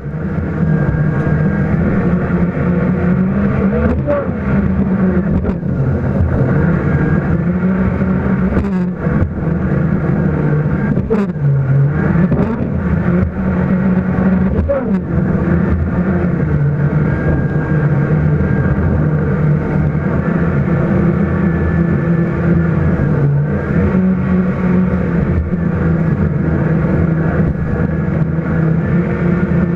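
Personal watercraft (jet ski) engine running hard, its pitch dipping and rising several times as the throttle changes.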